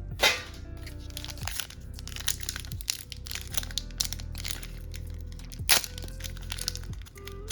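Foil booster pack crinkling and crackling as it is handled and pulled at while being opened, a struggle to open it, with two sharp cracks, one just after the start and one about two thirds of the way through. Background music plays underneath.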